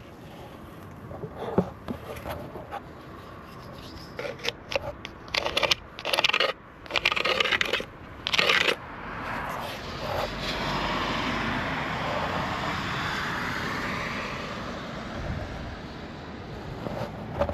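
Irregular scraping and crunching strokes of a tool working gritty roughcast render, bunched in the first half. They are followed by a steady rushing noise that swells and then fades over several seconds.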